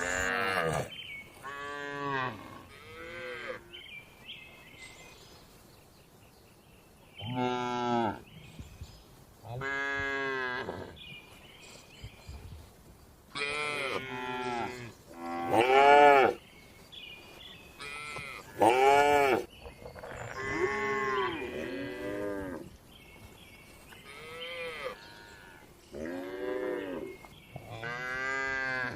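Cattle mooing over and over, about a dozen calls one after another, each rising and then falling in pitch, with short lulls between them.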